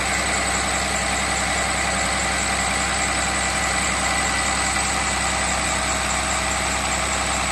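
6.7-litre Cummins turbo-diesel straight-six running steadily above idle, at about 1280 RPM, on HythanolPLUS hydrogen-based liquid fuel. It runs smoothly, without misfires.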